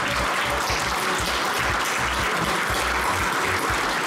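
Audience applauding steadily, a continuous clapping without a break.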